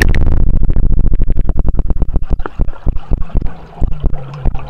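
Sound picked up with the camera under the water of a swimming pool: a loud, muffled low rumble with rapid crackling taps from water and bubbles moving around the camera as swimmers pass.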